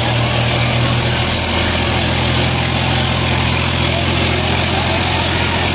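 Heavy tractor diesel engine running steadily at a constant pitch, over a loud, constant noisy background.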